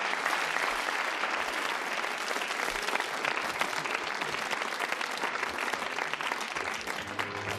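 Audience applause, many hands clapping at a steady level. Music with pitched notes comes in near the end.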